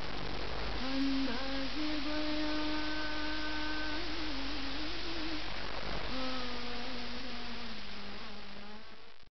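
A voice humming a slow, wordless melody in long held notes with a slight waver, in two phrases over a steady hiss. It fades near the end and cuts off suddenly.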